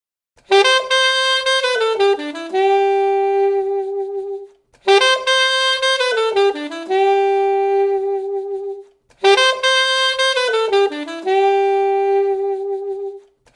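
Saxophone playing a short phrase of a few quick notes that settles on a long held low note. The same phrase sounds three times in a row.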